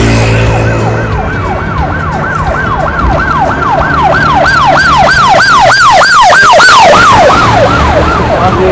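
Emergency vehicle siren in a fast yelp, its pitch rising and falling about three and a half times a second. It grows louder until six or seven seconds in, then fades and drops in pitch near the end as it passes, over the hum of street traffic.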